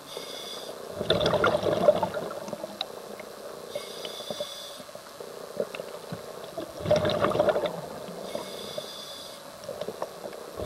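Scuba diver breathing through a regulator underwater: short hissing inhalations and two bursts of bubbling exhalation, about a second in and about seven seconds in.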